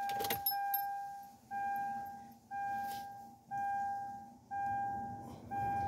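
Car dashboard warning chime in a 2012 Kia Sorento with the ignition on: a single pitched tone repeating steadily about once a second, six times, each fading away before the next, after a brief click at the start.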